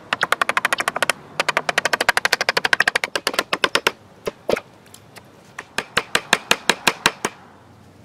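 Claw hammer striking a chisel to pare out the inside of a log, in fast runs of sharp, ringing taps for about three seconds, then slower, spaced blows that stop shortly before the end.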